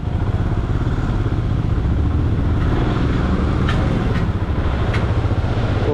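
Motorcycle engine running at low speed in slow traffic, a steady low rumble. Three short clicks come a little after the middle.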